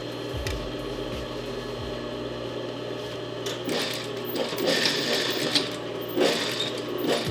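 Singer industrial sewing machine: its motor hums steadily, then from about three and a half seconds in it runs in short stitching stretches along the edge of a waistband.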